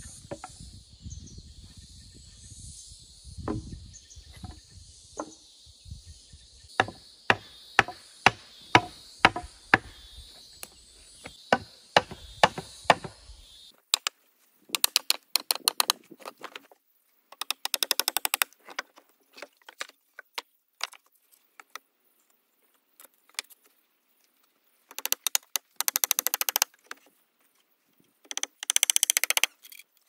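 Wooden boards being knocked and struck by hand tools while a small nest box is built: a run of sharp wooden knocks, about two a second, over a steady high background drone that cuts off about halfway through. Later come short bursts of rapid light tapping.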